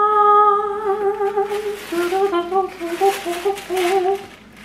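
A woman's voice singing a long held note, then dropping to a lower, wavering run of notes, while tissue paper rustles as it is pulled open.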